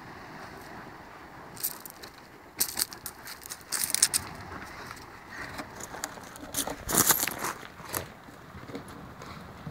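A small dog biting and tugging at the end of a dry driftwood log: irregular crackles and scrapes of teeth on wood, mixed with pebbles rattling under its paws, loudest about four and seven seconds in.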